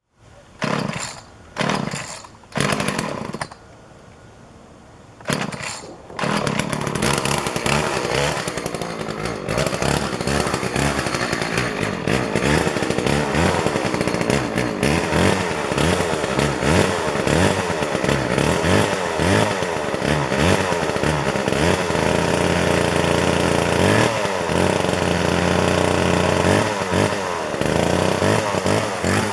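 An engine at high revs: three short bursts about a second apart, then after a short pause it runs continuously, its pitch rising and falling under varying load.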